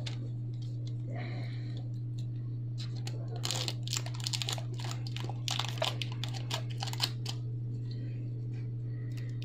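Scissors snipping clear plastic tape, with the tape crinkling: a run of small clicks and rustles between about three and seven seconds in, over a steady low hum.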